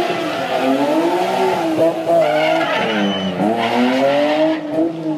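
BMW E36 Compact rally car drifting in circles, its engine revving hard with the revs swinging up and down again and again as the tyres skid and squeal.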